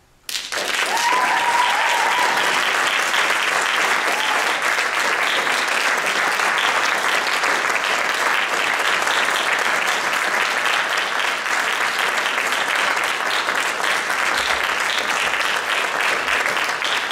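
Concert audience applauding, breaking out suddenly as a jazz piano trio piece ends and continuing steadily, with a brief cheer from the crowd about a second in.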